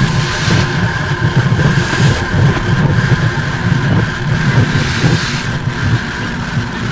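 Experimental noise music: a dense, churning low rumble with steady high tones and hiss laid over it, loud and unbroken.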